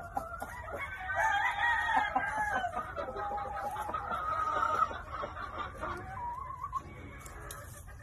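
A gamecock crowing: one long, drawn-out crow lasting about four seconds, followed a little later by a short wavering call, with softer chicken clucking around it.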